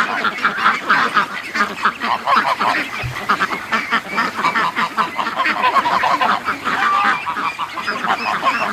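A large flock of domestic ducks and geese calling all at once, a dense, continuous chatter of overlapping quacks and honks.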